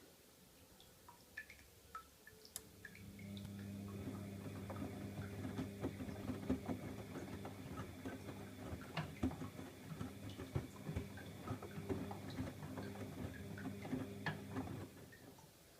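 Bosch Logixx 7 front-loading washing machine running mid-wash. A steady motor hum starts about three seconds in and cuts off shortly before the end, with irregular clicks and watery dripping and splashing over it.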